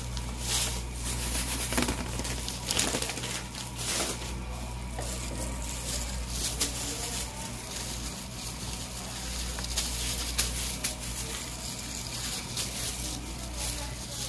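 Food-prep handling noises: breadcrumbs poured rustling from a plastic bag onto a metal tray, then gloved hands dipping rice balls in beaten egg and setting them on a metal tray with scattered soft taps. A steady low hum runs underneath.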